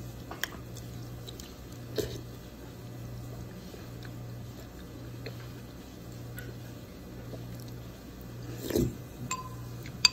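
Close-up eating sounds: a person sipping and chewing soup from a porcelain spoon, with a few short clicks and one louder mouthful near the end. A steady low hum runs underneath.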